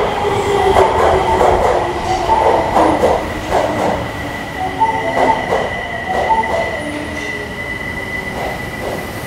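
Osaka Metro 22 series subway train moving through an underground station. Its wheels clatter irregularly, with short squeals, and the sound slowly gets quieter. A steady high tone runs underneath.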